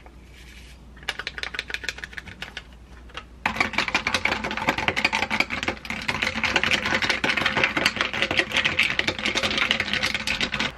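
Ice cubes rattling and clinking against a glass as an iced drink is stirred quickly. The clinking is soft at first, then turns loud and continuous about three and a half seconds in, as a fast patter of clicks.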